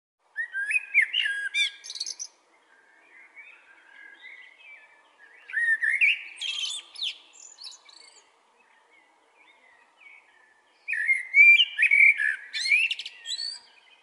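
Male common blackbird singing: three loud phrases of fluting whistles, each ending in a high, scratchy twitter, with quieter warbling in the pauses between them.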